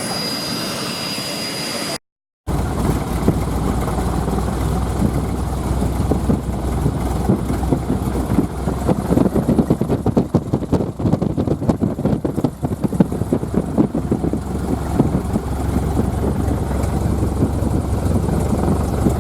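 Propeller aircraft engine running steadily: a loud low drone with a rapid flutter. It starts after a brief dropout about two seconds in, where a quieter steady hum with a high whine cuts off.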